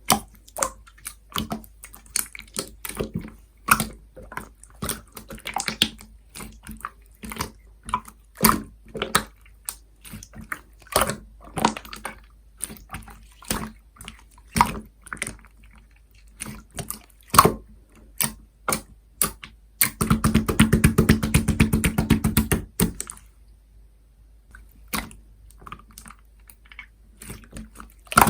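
Soda slime being squeezed and pressed by hand, making irregular sticky clicks and small air-bubble pops. About twenty seconds in there is a dense, fast run of crackling pops for about three seconds, then only scattered clicks.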